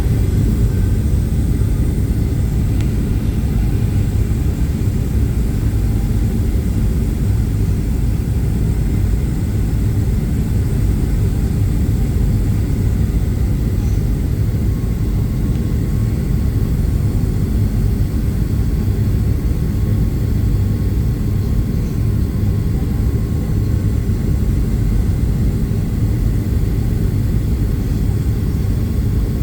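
Steady rumble of a Boeing 737-800 airliner in flight, heard from inside the passenger cabin: engine and airflow noise, unchanging in level.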